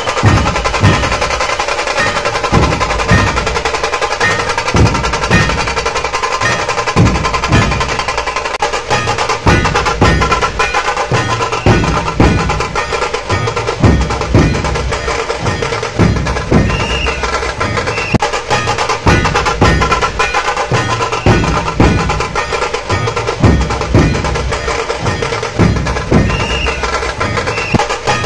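Procession drumming from a dhol-tasha troupe: deep dhol strokes a little under twice a second, over a dense, rapid rattle of tasha strikes, loud and unbroken.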